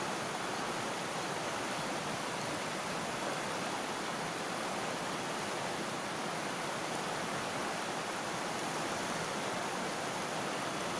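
Steady, even rush of a shallow river flowing around boulders.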